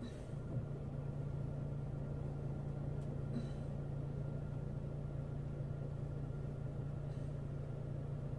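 Steady low hum of a car's running engine heard from inside the cabin, with a couple of faint ticks.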